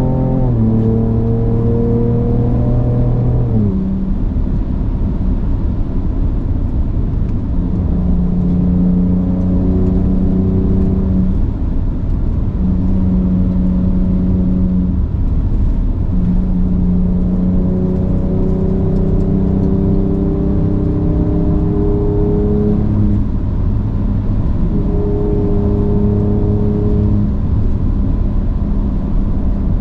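Ford Ranger Raptor's engine and exhaust under way in Baja mode. The engine note falls about three and a half seconds in, then holds steady for a few seconds at a time, stepping up and down in pitch, over a steady low road rumble.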